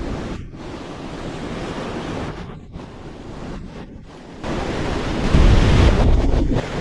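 Strong wind buffeting the microphone, a rough rushing noise that gusts hardest about four and a half seconds in, with a heavy rumble, then drops back just before the end.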